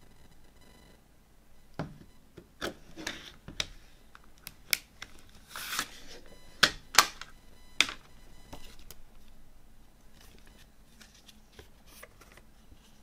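Plastic CD jewel case being handled and opened: a run of sharp clicks and clacks, with a short scrape midway and the loudest clacks about seven to eight seconds in. Then softer rustling of the paper booklet being leafed through.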